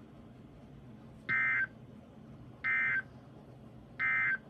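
Emergency Alert System end-of-message data signal from NOAA Weather Radio: three short buzzy digital bursts about 1.4 s apart, marking the end of the broadcast warning.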